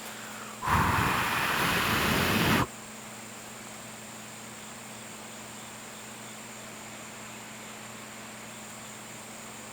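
A person blowing one long breath of air for about two seconds, starting about half a second in and cutting off sharply. Otherwise a steady faint background hiss.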